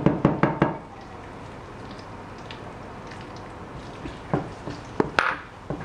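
A cooking utensil knocking against a saucepan as minced garlic goes into warm olive oil: a quick run of about five sharp knocks at the start, then a few more near the end.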